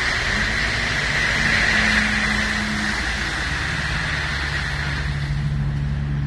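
Crushed stone pouring off the raised bed of a tipping dump trailer in a steady hiss that fades away about five seconds in, over the truck's diesel engine running steadily.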